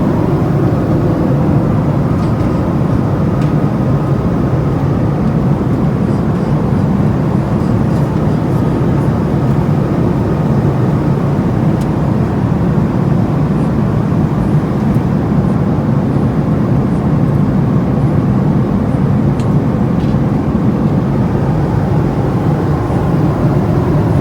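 Steady, even drone of an airliner cabin in flight.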